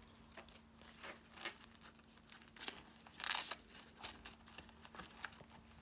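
Polymer banknotes rustling and crinkling faintly in short, irregular bursts as they are handled and slid into a wallet pocket, loudest about three seconds in.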